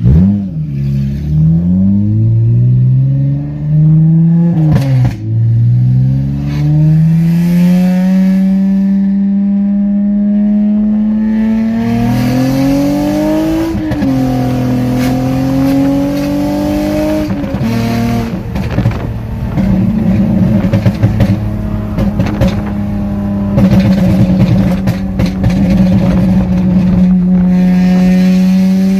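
2009 Honda Accord coupe's 3.5-litre V6 running through a straight-piped exhaust with the electric cutout open, heard from inside the car while driving. The engine note climbs and drops with gear changes in the first few seconds and again around the middle, then holds a steady drone that turns rougher and raspier in the second half.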